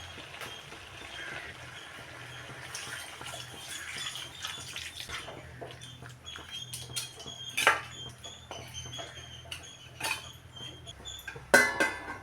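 Kitchen work: metal utensils and dishes clinking and knocking over a background of running water, with a louder clatter of several knocks near the end.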